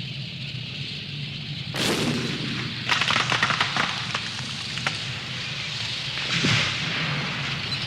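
A sudden bang about two seconds in, then a rapid crackle of sharp reports a second later and another bang about six and a half seconds in, over a steady hiss and low hum.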